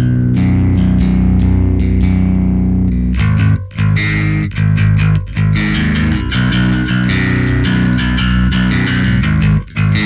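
Electric bass, a Precision Bass copy, played through a Caline CP-60 Wine Cellar bass driver pedal with its drive on, giving a gritty overdriven tone recorded direct. Low notes ring out for about three seconds, then give way to a run of plucked notes with brief stops between phrases.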